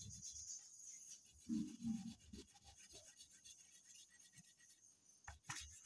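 A colouring pencil or crayon rubbing and scratching on paper as a picture is coloured in, faint, with two soft low thuds about a second and a half in and a few light clicks near the end.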